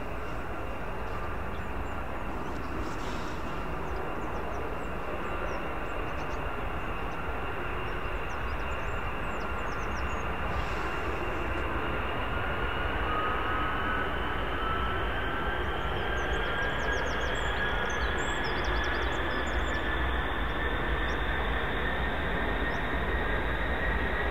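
F-35B's Pratt & Whitney F135 jet engine and Rolls-Royce LiftFan on a ground run, a steady jet whine whose high tones slowly rise in pitch as it grows a little louder.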